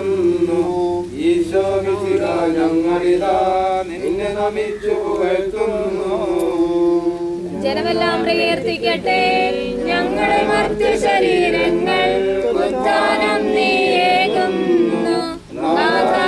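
A group of voices singing a funeral hymn together; the singing grows fuller, with more voices joining, about halfway through.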